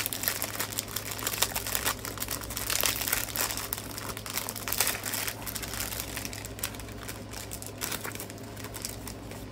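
Small plastic zip bags of diamond-painting drills crinkling as they are handled, an irregular run of crackles.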